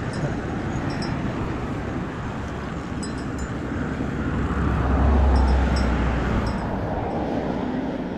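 Wind rushing over the microphone of a mountain bike riding along a roadside, mixed with road traffic noise. A low rumble swells to its loudest about halfway through and fades, and a few faint light ticks come from the bike.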